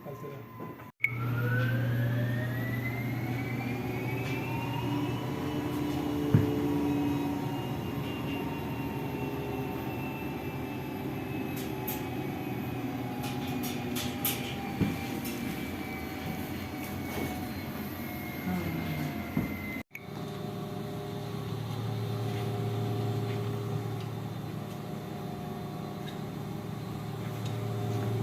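Lavamac washer-extractor's induction motor and belt-driven drum running up into spin: a whine that rises in pitch for about four seconds, then holds a steady hum. The motor is running on freshly replaced bearings after its old ones were damaged.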